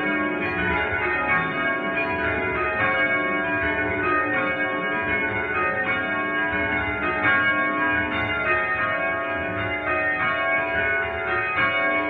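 A light ring of five church bells, 5 cwt with the tenor in C#, cast in 1909 by Mears and Stainbank, being rung full circle by hand with ropes. The bells strike one after another in a steady, continuous rhythm.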